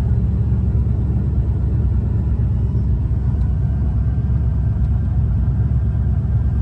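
Ford 302 small-block V8 idling steadily with a deep exhaust rumble, still warming up after a cold start.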